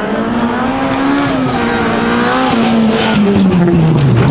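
Rally car engine at high revs, its pitch rising a little and then falling steadily as the car comes off the throttle, with a few sharp crackles near the end.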